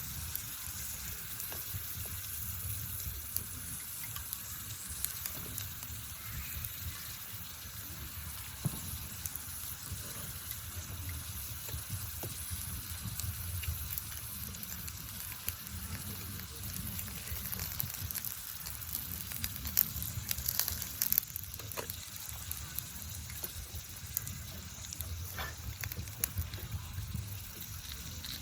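Campfire crackling and hissing steadily, with scattered sharper pops.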